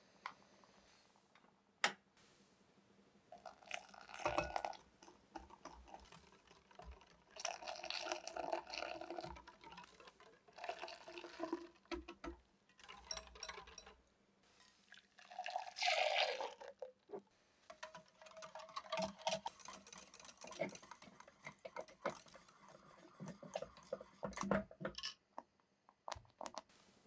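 Making custard cream: a wire whisk beating egg yolks and sugar in a glass bowl, in bursts of rattling strokes, with liquid sloshing and pouring.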